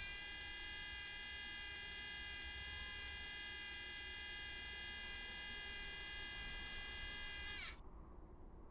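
Electric servo-motor whine of the Curiosity rover's mast head turning, a steady high-pitched whine that drops in pitch and stops about three-quarters of the way through, leaving a faint hum.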